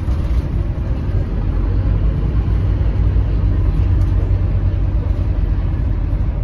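Scania K310UB city bus heard from inside the passenger cabin: a steady low rumble of its diesel engine and running gear.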